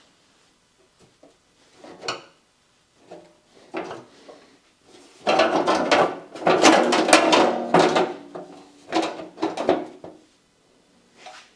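Garden tractor fender being set on the frame and worked into place: scattered knocks, then about three seconds of loud clattering and scraping from about five seconds in, and a few more knocks after.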